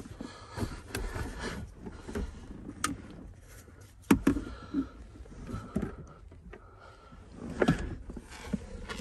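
Hands rummaging around a car's seat and center console: soft rustling and shuffling with scattered knocks and clicks, the sharpest about four seconds in and again a few seconds later.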